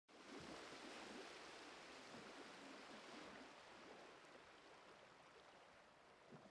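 Near silence: a faint, steady hiss that slowly fades.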